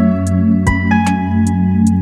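Background music: a steady ambient electronic track with sustained synth notes, a held bass and a light regular beat.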